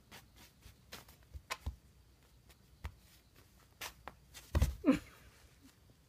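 A cat's paws tapping, scrabbling and scuffing on a tatami mat as it bats at a feather teaser toy, in scattered light taps, with a louder scuffle about four and a half seconds in.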